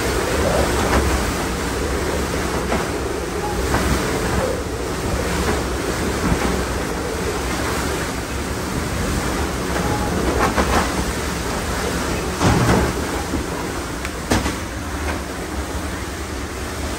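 Hurricane Roslyn's wind and driving rain, a loud, steady rush that swells in gusts, with a few short bangs in the second half, the loudest about three-quarters of the way through.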